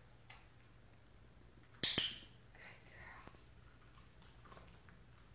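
Dog-training clicker giving one sharp click about two seconds in, marking the dog's interest in the toy for a food reward. Fainter soft handling sounds follow.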